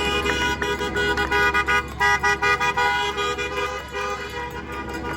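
Several car horns honking at once in short, overlapping toots, loudest between about one and a half and three seconds in.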